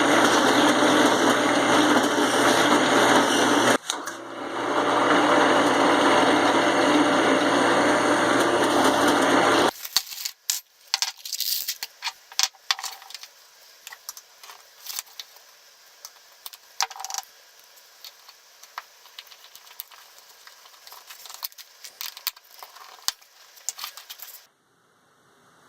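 A power tool running loudly and steadily for about ten seconds, dipping briefly about four seconds in, then cutting off. After that come scattered light clicks and taps of small hard parts being handled.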